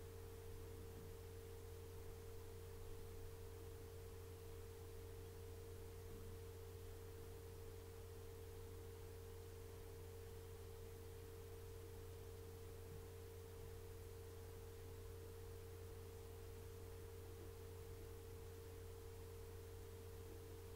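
A faint, steady hum with a single held mid-pitched tone above it, unchanging.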